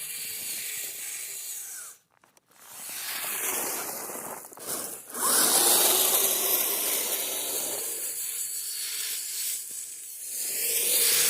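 Electric motor and tracks of a Kyosho Blizzard RC snow vehicle grinding through snow, a steady hissing, whirring noise. It cuts out briefly about two seconds in, and a rising whine follows near the middle as the motor speeds up.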